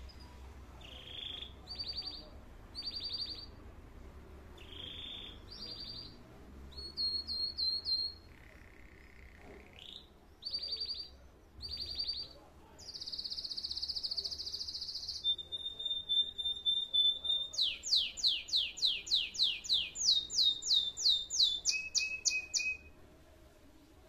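Caged canary singing a varied song. It opens with short separate whistled notes, then gives a long buzzy note and fast trills of repeated falling notes, growing louder, and stops near the end.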